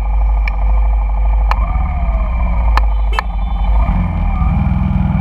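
Honda Shadow cruiser's V-twin idling at a stop among idling scooter engines, with a few sharp clicks. About four seconds in, the engines pick up as traffic pulls away at a green light.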